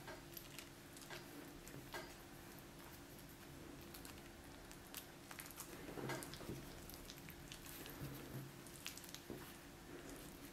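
Faint handling sounds of filled yeast dough being folded and twisted by hand on a wooden board: soft pats, light squishes and small ticks, a few closer together about six seconds in, over a steady low hum.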